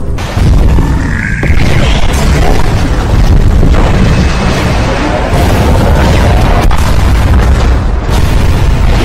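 Animated battle sound effects: deep booms and explosions following one another, with a brief rising whine about a second in.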